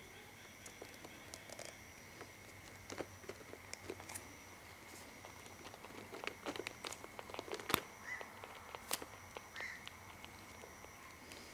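Quiet handling noise from a plastic cat-treat tube and small feeding syringe being worked in the fingers: scattered soft clicks and rustles, busiest in the second half. Two brief faint kitten squeaks come near the end.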